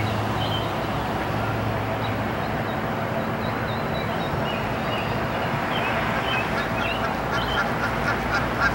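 Steady outdoor city-park noise, a wash of fountain spray and distant traffic, with small birds chirping now and then. Near the end, geese start honking in a quick run, about three honks a second, getting louder.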